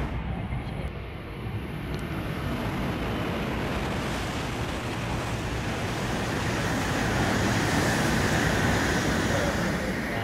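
CRH high-speed electric train running past a station platform at speed: a steady rush of wheel and air noise that swells over several seconds, with a higher hissing band joining in near the end.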